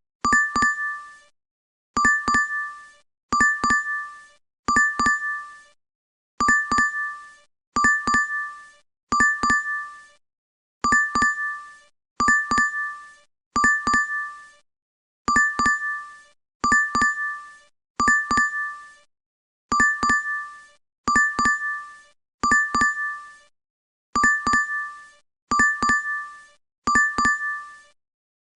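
DoorDash app notification chime playing over and over: a quick cluster of three bright dings on two notes, repeating about every one and a half seconds.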